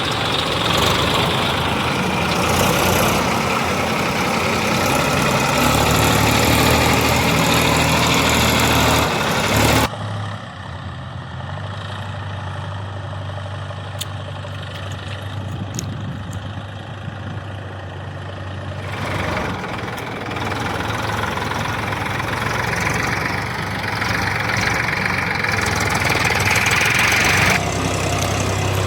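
Diesel engines of heavy farm and construction machinery running. About ten seconds in the sound drops abruptly to a quieter, steady low engine hum, and about nine seconds later the louder running returns.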